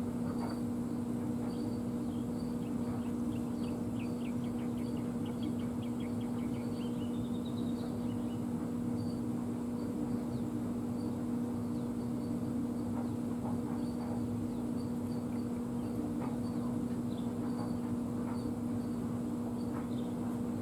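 A steady low hum with a faint overtone, and over it faint high chirps repeating about twice a second, with a short rising series of chirps a few seconds in.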